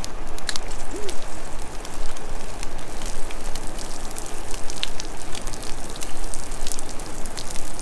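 Campfire crackling and popping: a steady hiss of burning wood with many small sharp pops scattered throughout.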